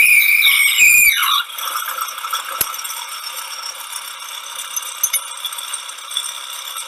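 Metal-turning lathe working bar stock into small nuts. A high steady tone drops in pitch and fades about a second in, and the machine then carries on with a steady metallic rattle.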